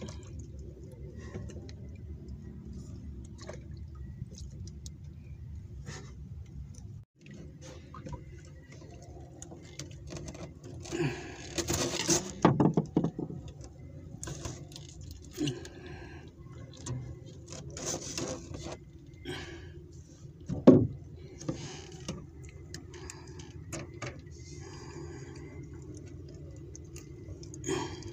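Fishing net and fish being handled in a wooden boat: scattered rustles, clicks and knocks over a steady low hum. There is a louder stretch of rustling about twelve seconds in and one sharp knock about twenty-one seconds in.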